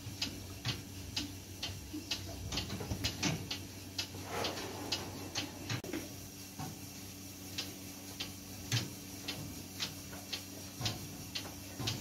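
Cattle feeding at a metal headlock feed barrier: a run of sharp, uneven clicks and crunches, about two or three a second, over a steady low hum, with a brief rustle about four seconds in.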